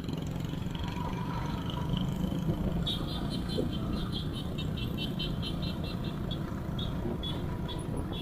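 Motorcycle engine running steadily while riding, a continuous low rumble. From about three seconds in, a rapid series of short high-pitched chirps sounds over it, about four or five a second, then more sparsely.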